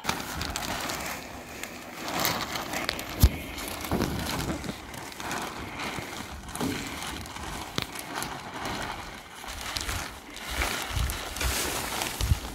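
Plastic roof underlay sheet rustling as it is unrolled and pulled across the roof battens, with one sharp knock about three seconds in.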